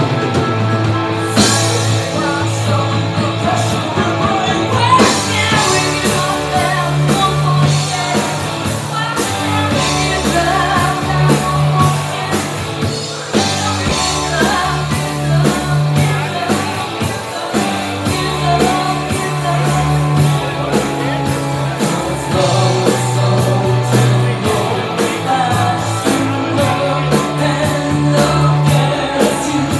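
Live rock band playing: a woman singing lead into a microphone over electric guitar, bass and a drum kit.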